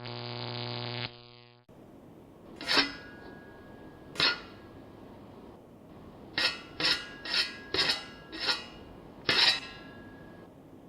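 A steady hum for about the first second and a half, then hard objects clinking with a short ringing tone on each strike: two single clinks, a quick run of about six, and one more near the end.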